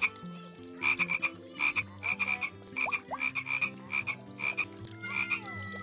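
Frogs croaking in short bursts repeated about twice a second, over rain dripping and plinking into a tub of water.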